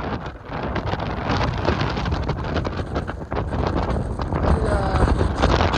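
Strong gusty wind buffeting the microphone, a loud uneven rumble that swells and drops with the gusts.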